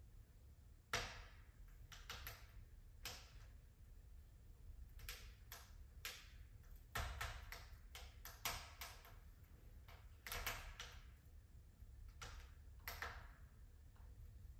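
Wood fire crackling in a fireplace: faint, irregular pops and snaps, the sharpest about a second in, over a low steady rumble.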